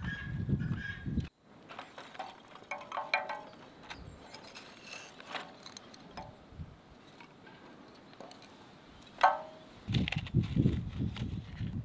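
Thin, dry split-wood kindling sticks clattering and knocking against each other and the steel fire pan as they are stacked into a pile, with one sharper knock near the end.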